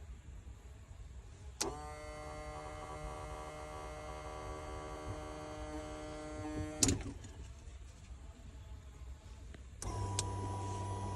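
2019 Mustang GT electric fuel pump whining steadily for about five seconds, starting and stopping with a click, in a pump that the owner takes to be bad. After another click near the end, a lower steady hum starts.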